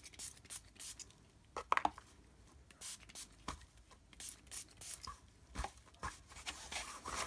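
Gloved hands scrunching and dabbing freshly dye-sprayed sari silk against paper: scattered soft rustles and taps, the sharpest a double stroke about two seconds in.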